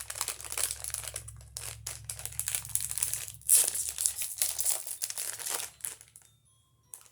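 Packaging of a blind-box figural magnet crinkling and rustling as it is handled and pulled at to open it, with a louder crackle about three and a half seconds in. The handling dies down near the end.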